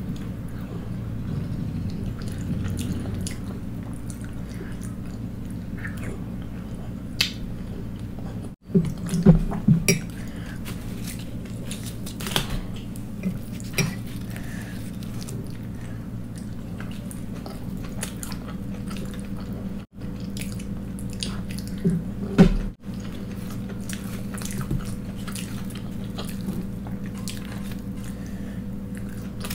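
Close-miked eating: chewing and mouth sounds of poori and aloo sabzi, with scattered clinks of a metal spoon and bowls and the squish of bread dipped in curry. Louder clusters of knocks come about nine seconds in and again about twenty-two seconds in.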